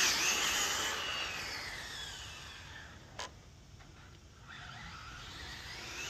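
High-pitched electric motor whine of a brushless RC car driving off, its pitch sliding down as it fades into the distance, then growing louder again near the end as the car comes back.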